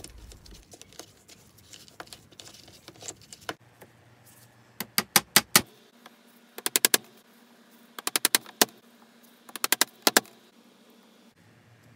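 A hammer tapping nails into a wooden board: four quick runs of five or six sharp taps each, about a second and a half apart, one run per nail. Faint handling noises come before them.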